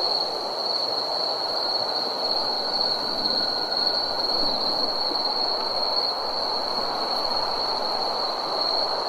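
Night-time ambience: a continuous high-pitched insect trill, held at one steady pitch, over an even lower hiss.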